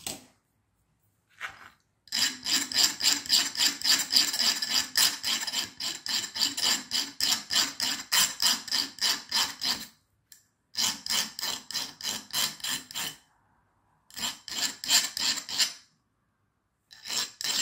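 Hand file rasping back and forth across the cut end of a metal nail, filing it down to length. Quick, even strokes come in four runs with short pauses between, the longest run first.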